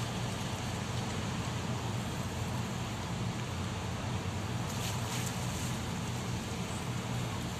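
Steady low rumble of the Pelni passenger ship KM Gunung Dempo's engines across the harbour water, over an even hiss.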